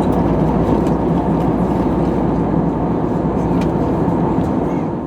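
Steady cabin noise inside an Airbus A320neo in flight: an even rumble of the engines and rushing airflow, fading out at the very end.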